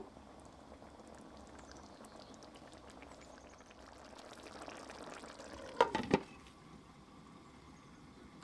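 Thick eggplant and tomato stew bubbling in a stainless steel pan, the fine popping growing stronger. About six seconds in, a glass lid is set down on the pan with a quick clatter of a few knocks.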